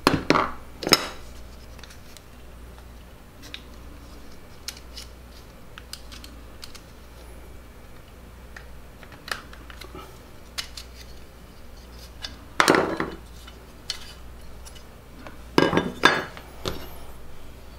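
Timing chain guides and their wear-strip liners being worked and handled on the bench: scattered light clicks and clinks, with a few louder clatters just after the start, about 13 seconds in and about 16 seconds in.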